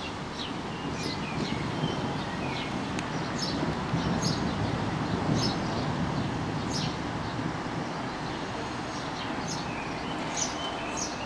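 A steady low rumble that swells for a few seconds near the middle, with birds chirping in short high calls throughout.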